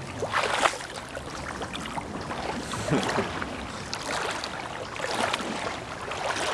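Shallow creek water splashing and sloshing irregularly over a steady rush of flowing water, as of someone wading through the creek.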